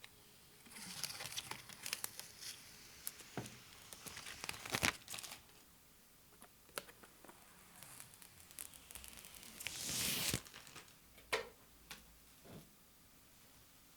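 Crinkling and rustling of packaging being handled, with a few sharp clicks; the longest, loudest rustle comes about ten seconds in.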